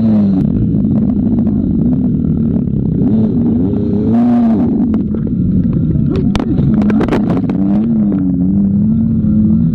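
Dirt bike engine running under constant throttle changes, its pitch rising and falling again and again. Several sharp knocks come about six to seven and a half seconds in.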